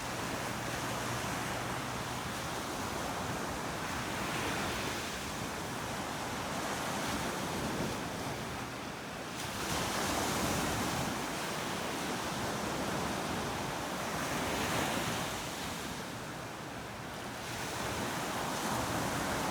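Atlantic Ocean surf breaking and washing onto the beach in a steady rush, swelling louder with each wave every few seconds.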